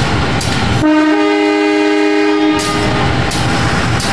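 Diesel locomotive horn (KAI CC 203) sounding one blast of about two seconds, a chord of several notes, starting about a second in, over the rumble of the train.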